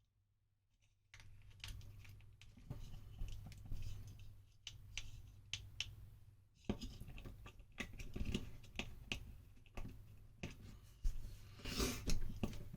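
Light irregular clicks, taps and scratching of small parts and wires being handled, over a low steady hum, starting about a second in.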